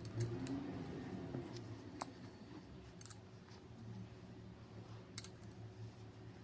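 Faint, scattered small clicks and handling noises, a few seconds apart, over a steady low hum.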